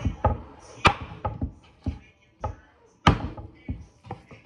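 Kitchen knife chopping through pieces of fried chicken on a wooden cutting board: a run of irregular thunks on the board. The two loudest come about a second in and about three seconds in.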